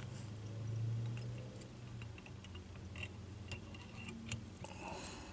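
Faint ticks and clicks of a whip finish tool and tying thread being worked around the head of a fly in a vise, over a low steady hum that is strongest in the first two seconds.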